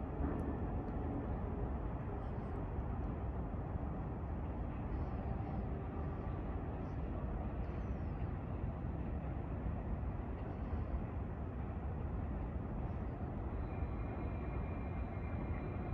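Steady low outdoor rumble of background noise, with a few faint high chirps scattered through it. Near the end a faint, steady high-pitched tone sets in.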